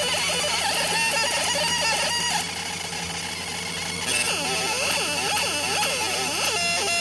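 Laser engraver's scanning head chirping and whining in quick pitch sweeps and stepped tones as the beam traces lettering, over a steady machine hum. It goes quieter for about a second and a half in the middle.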